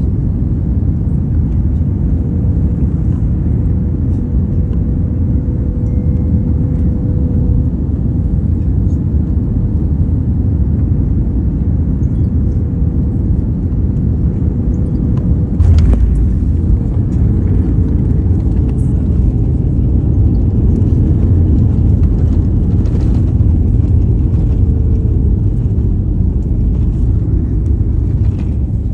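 Jet airliner landing, heard inside the cabin: a steady engine rumble with a faint hum, then a sudden thud about halfway through as the main wheels touch down, followed by a louder rumble as the jet rolls out on the runway with its spoilers up.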